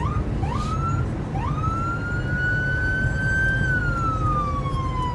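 Ambulance siren heard from inside the vehicle, switching from quick rising yelps at the start to a slow wail that climbs for a few seconds and then falls, over the steady low rumble of the engine and road.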